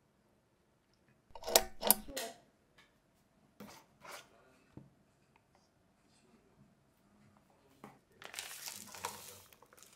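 A few sharp knocks and clicks of packaging being handled, then a mix packet torn open near the end with a crinkly ripping noise lasting about a second and a half.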